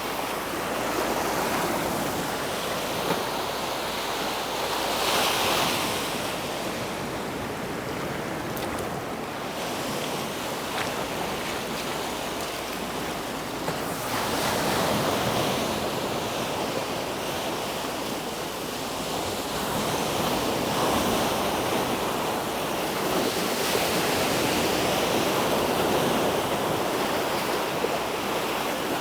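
Sea waves breaking and washing up on a sandy beach, swelling and easing every few seconds, with some wind on the microphone.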